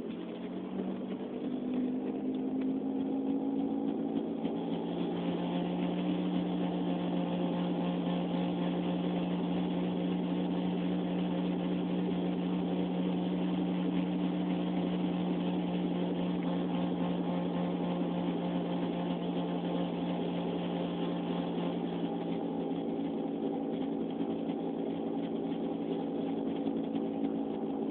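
A car making a steady humming drone with several tones, which shifts up in pitch over the first couple of seconds and then holds steady. This is the unexplained weird noise the owner wants identified.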